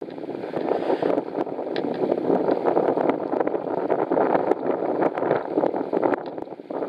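Wind blowing over the microphone: a rough, uneven rushing with scattered crackles and clicks.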